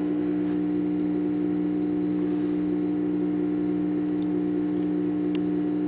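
Steady electrical hum with a few faint ticks, from the equipment running a stainless-steel-plate hydroxy (HHO) electrolysis cell at about 16 amps.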